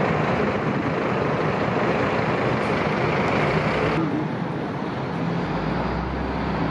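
Steady road traffic noise from passing cars. The sound changes abruptly about four seconds in, and a low rumble comes in near the end.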